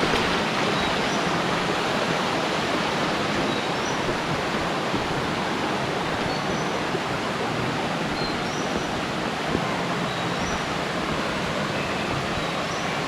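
Stream water rushing steadily over rocks at a crossing.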